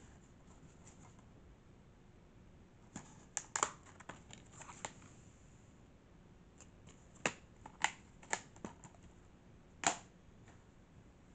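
Plastic DVD case being handled and opened: sharp clicks and snaps of the case and its disc tray under the fingers, in two scattered clusters, one a few seconds in and another later on.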